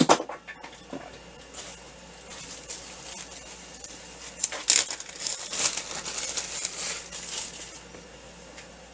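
Steel wool being scrubbed on a metal shaft to shine it: an uneven scratchy rasp in quick irregular strokes, mostly in the middle stretch, after a sharp knock at the very start.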